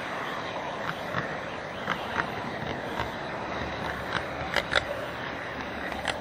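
HO-scale model train running on its track, heard from a camera riding on the train: a steady rolling rush with irregular sharp clicks from the wheels and track, two of them close together about four and a half seconds in.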